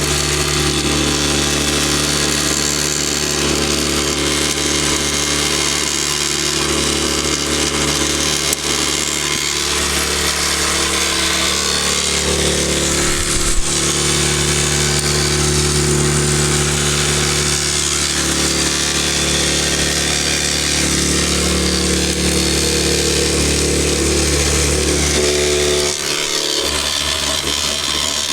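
Electric Backcountry F2 Tornado drywasher running steadily: a motor hum under a continuous shaking rattle of its vibrating screen and tray, with a brief dip near the end.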